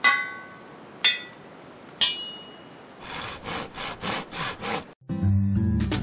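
Logo sting made of workshop sounds: three sharp ringing taps about a second apart, then a quick run of about six saw-like strokes. Acoustic guitar music starts about five seconds in.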